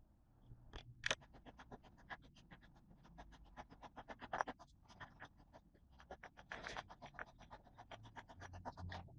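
Rapid, faint scratching clicks, several a second, with a few louder snaps among them.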